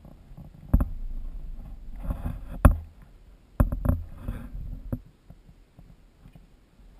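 Chairlift clanking and rumbling: a sharp clank about a second in, more clanks near the middle, and a low rumble between them for about four seconds.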